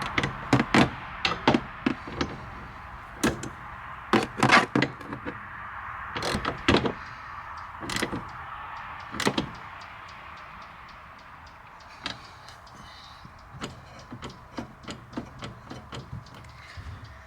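Hand tools and metal parts being handled on a car wiper arm: irregular sharp clicks and knocks, with a steady hiss that fades about halfway through. Near the end comes a run of lighter, quicker ticks.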